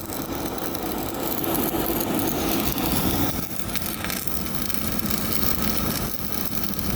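Stick-welding arc crackling and sputtering steadily, over a low machine drone.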